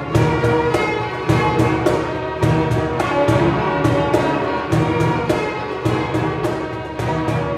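Orchestral music with strings and brass playing sustained chords over a steady percussive beat.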